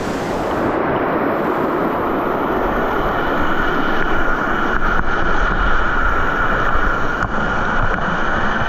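Mountain stream rushing over rocks: a steady, loud rush of water.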